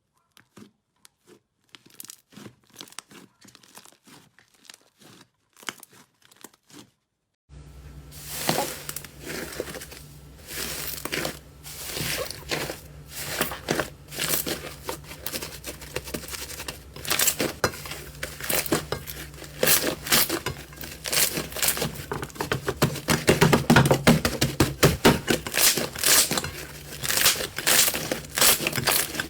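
Slime being squished and pulled by hand: sticky crackling and popping clicks. These are faint and sparse at first, then after a cut about seven and a half seconds in they turn loud and dense over a steady low hum.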